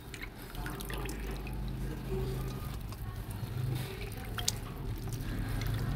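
Water splashing and dripping as thinly shaved potato slices are scooped out of a basin of rinsing water into a basket, with scattered small splashes and drips.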